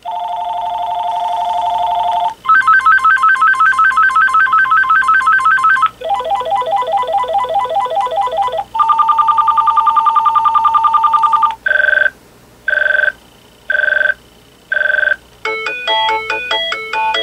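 VTech DECT 6.0 cordless phone handset previewing its built-in ringer tones one after another: four different electronic trilling, warbling rings, then four short beeps about a second apart, then a melodic ringtone starting near the end.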